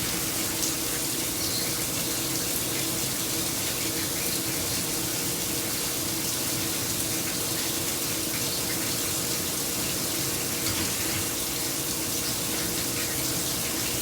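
Coolant flooding over the work in a Milltronics SL10 CNC slant-bed lathe, a steady running-water rush over a steady machine hum, while a drill peck-drills 304 stainless steel.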